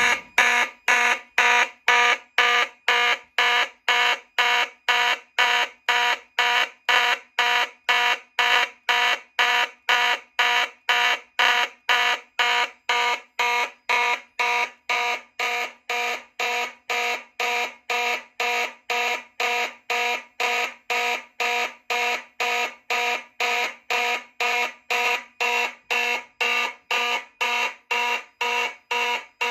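Fire alarm horns sounding in march time after the pull station is pulled: an even, buzzy horn tone pulsing about twice a second, on and on.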